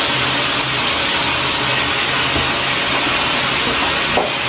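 Steady, even hiss with a low hum under it from the chicken curry cooking on the stove.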